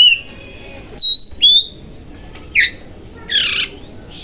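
Oriental magpie-robin (kacer) singing: a few loud, sharp whistled notes, one sweeping steeply down in pitch, then a short harsh squawk.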